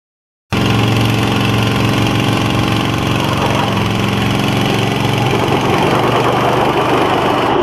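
Silence for about half a second, then pickup truck engines running hard at steady high revs, under heavy load as the trucks pull against each other. The sound grows rougher about three seconds in.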